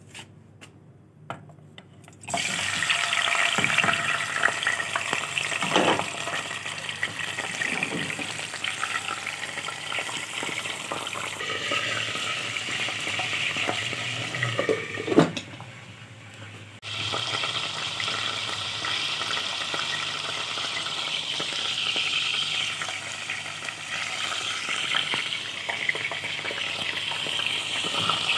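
Raw chicken pieces sizzling in hot oil in a karahi and being stirred. The sizzle starts suddenly about two seconds in, with a sharp clank about halfway through, followed by a short lull before the sizzle returns.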